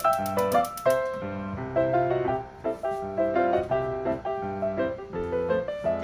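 Background music: a piano tune, a melody of short notes over a bass line.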